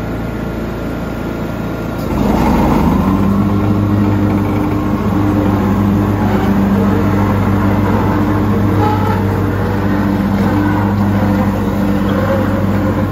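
Zipper TS-22 mower's engine running as the mower is driven; about two seconds in it gets louder and settles into a steady, even hum.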